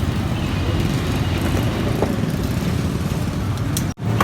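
Steady low rumble of road traffic, with a faint click or two; the sound drops out for a moment near the end.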